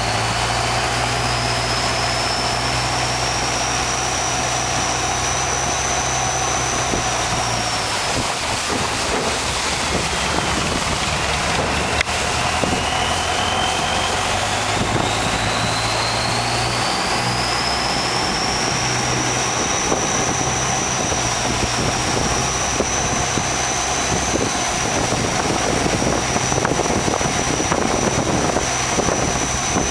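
A riverboat's engine running under way, with a thin high whine over the rush of water and wind. About a third of the way in the whine drops and the engine note eases off, then both climb back up and hold steady as the boat picks up speed again.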